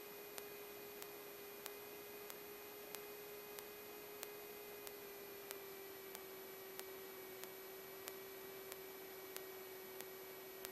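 Faint electrical hum in an aircraft intercom/radio audio feed: a steady mid-pitched tone that sags slightly in pitch, over a light hiss, with faint regular ticks about three every two seconds.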